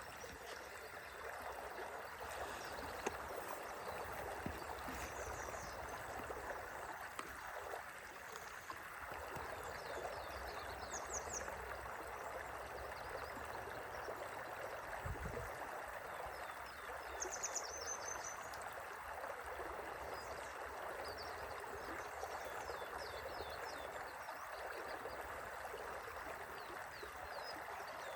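A river flowing gently, a steady, even rush of water. Faint high chirps come through now and then, more often in the second half.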